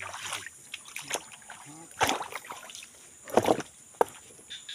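Footsteps on wooden planks and logs laid over shallow water, with a few knocks and splashes. The loudest come about two seconds in and again about three and a half seconds in.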